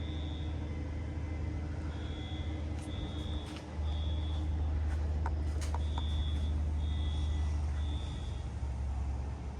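Fire alarm sounding faintly from a distance: a high beeping tone repeating roughly once a second, over a steady low rumble that gets louder about four seconds in. A few sharp clicks come near the middle.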